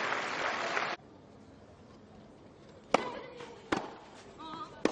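Crowd applause that stops abruptly about a second in, then tennis rackets striking the ball in a doubles point: a sharp pop for the serve about three seconds in, the return under a second later, and another shot near the end.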